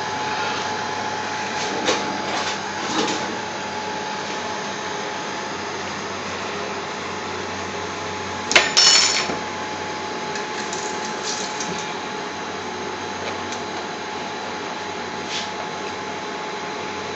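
Steady whirring room noise with a constant faint whine, and a sharp clack followed by a short clatter about nine seconds in.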